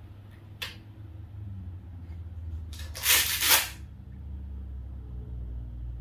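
Handling of a new Festool sander and its pad parts: a sharp click about half a second in, then a loud scraping rasp lasting about a second around three seconds in, over a steady low hum.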